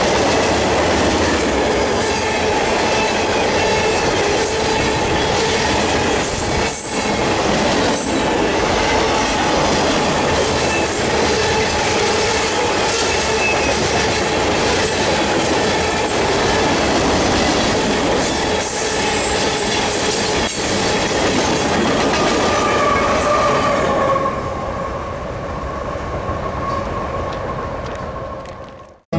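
Union Pacific mixed freight train of covered hoppers and tank cars rolling past at speed, its wheels clattering over the rail joints with a steady squeal. The sound drops away about 24 seconds in as the train moves off, then cuts off suddenly near the end.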